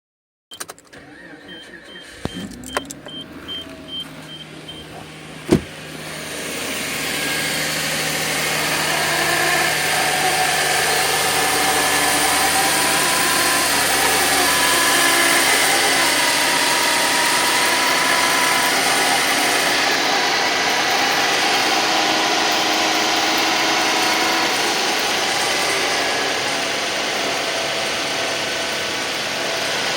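Suzuki Grand Vitara 2.7 V6 cold start. After a few clicks and a run of quick beeps, a sharp click comes about five and a half seconds in. The engine then runs, rising over a few seconds to a loud, steady running sound with a weird grinding noise in it.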